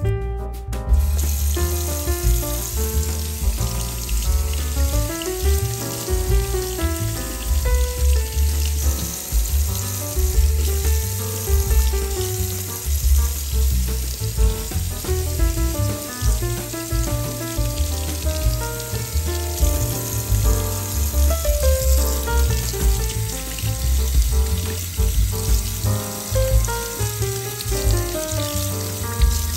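Kitchen tap running into a stainless steel sink while produce is rinsed under the stream, starting about a second in. Background music with a steady bass beat plays over it and is the louder sound.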